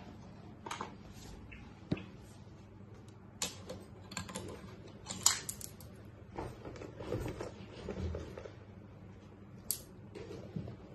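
Persian cat batting and pouncing on a small toy on a tile floor: irregular clicks, clatters and scrapes of the toy and claws on the tiles, the sharpest click about five seconds in, with softer thumps of paws a few seconds later.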